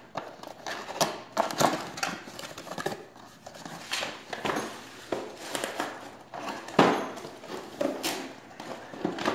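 Irregular rustling, scraping and knocks of a cardboard box being handled as a new motorcycle rear shock absorber is worked out of its packaging.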